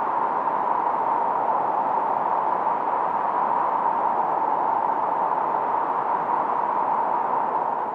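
Filtered analog noise from a 1972 Moog Minimoog synthesizer: a steady, mid-pitched hiss with little deep rumble or high fizz.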